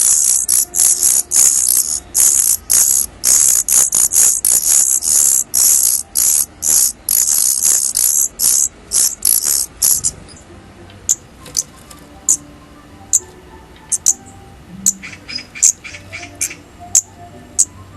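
Daurian redstart chicks calling: a loud, rapid, continuous run of very high-pitched chirps for about ten seconds, which then stops abruptly, leaving only scattered single sharp calls.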